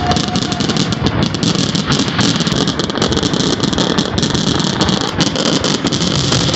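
Fireworks crackling continuously: a dense, unbroken run of rapid small pops and crackles.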